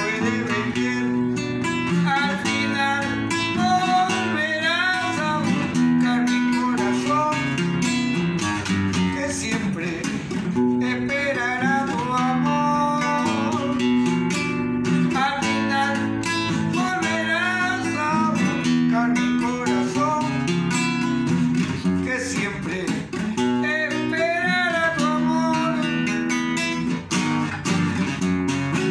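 A man singing a Peruvian vals in waltz time, accompanying himself on a nylon-string classical guitar. His voice comes in and out in phrases over continuous guitar playing.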